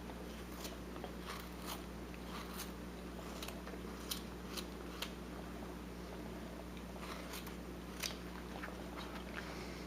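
Carving knife taking small slicing cuts in wood: faint, irregular crisp ticks and scrapes, about a dozen of them, over a steady low hum.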